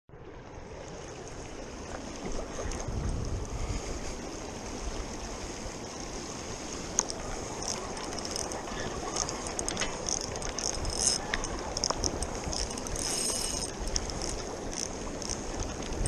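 Fast river water rushing over rapids, with wind buffeting the microphone; it fades in at the start. Scattered small clicks and rattles sound close to the microphone throughout.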